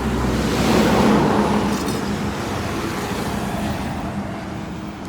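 A road vehicle passing by: a swell of engine and tyre noise that is loudest about a second in and then slowly fades, over a steady low hum.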